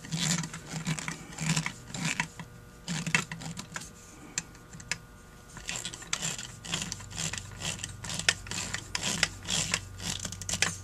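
Flat-blade screwdriver turning and seating small screws in a Holley 1904 carburetor's body: repeated short metallic scraping and clicking strokes. There is a lull about four seconds in, then quicker strokes to the end.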